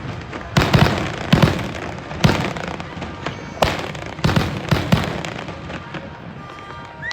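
Fireworks bursting: a run of about eight sharp bangs, several in quick pairs, each trailing off in a rumble, before a lull over the last couple of seconds.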